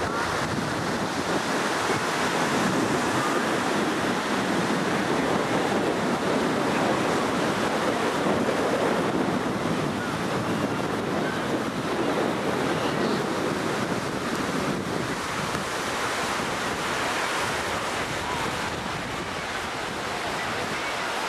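Ocean surf washing onto the beach, a steady rushing noise, with wind buffeting the microphone.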